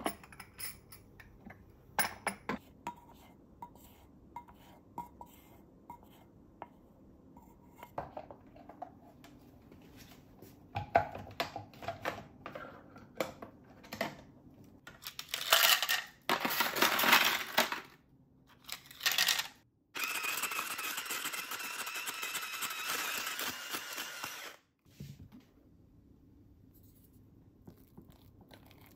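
Small dishes clinking as they are handled, then ice cubes clattering as they are poured into a shaved-ice machine. The machine then runs, shaving ice steadily for about five seconds before cutting off.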